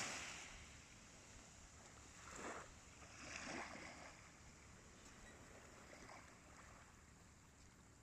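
Faint surf washing on the beach, with two soft swells of wave noise about two and a half and three and a half seconds in.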